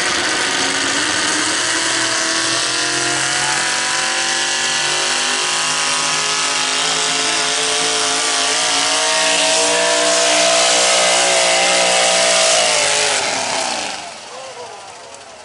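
Modified 4x4 pulling truck's engine running hard under load as it drags the pulling sled, its pitch climbing slowly and getting louder. About thirteen seconds in, the engine drops off sharply and falls quiet as the pull ends.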